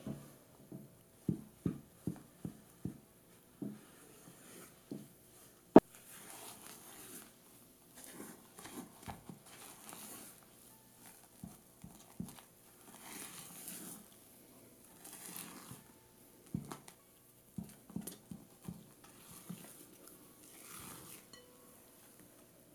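Silicone spatula folding almond flour and sugar into meringue in a glass bowl for macaron batter: soft, repeated thuds and scrapes against the glass, with one sharp knock about six seconds in.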